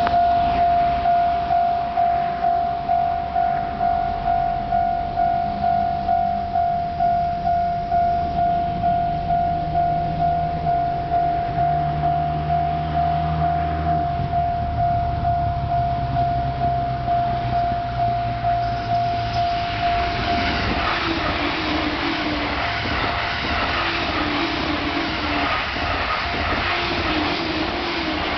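Level crossing alarm ringing in a steady repeated beat, then a JR East E531 series electric train rushes past from about 20 seconds in, its passing noise and wheel clatter drowning out the bell.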